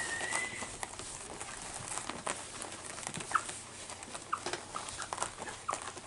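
Young puppies, about two and a half weeks old, giving a few brief high squeaks amid a run of small clicks and rustling as they scramble about and crowd under their mother to nurse.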